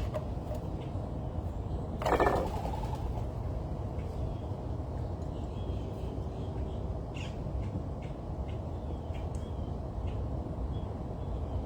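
One loud, harsh bird call, like a caw, about two seconds in, with small birds chirping faintly and sparsely throughout over a steady low background rumble.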